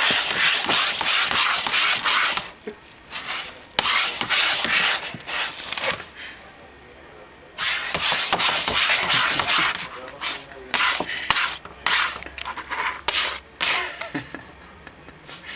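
A cat pawing and scratching at a shopping bag, the bag rustling and scraping in bursts of one to two seconds with short pauses between, the bursts shorter and more broken near the end.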